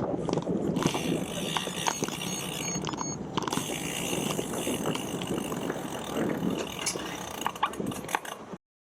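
Bicycle clicking and ratcheting in scattered ticks over steady road and wind noise, cutting off suddenly near the end.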